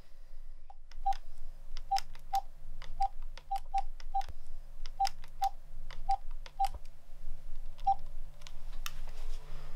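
Phone keypad beeping as a number is dialled: about a dozen short beeps of the same pitch, one per key press, at uneven spacing.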